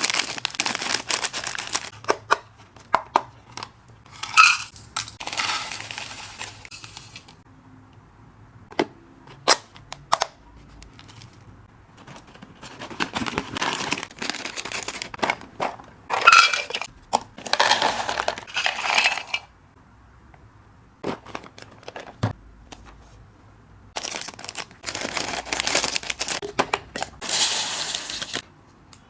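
Dry hamster snacks being poured and shaken into storage containers, in several rattling runs of a few seconds each. Single clicks and clinks of the containers fall in between.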